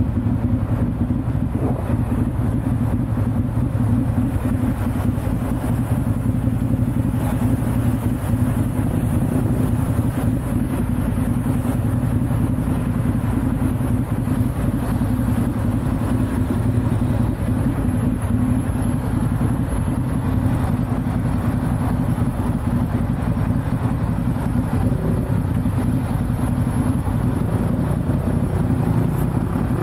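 Motorcycle engine running steadily at a low, even pitch, heard from the rider's position.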